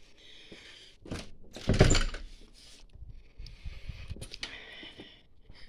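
A door opening with a loud thunk about two seconds in, with a smaller knock just before it, then quieter rustling.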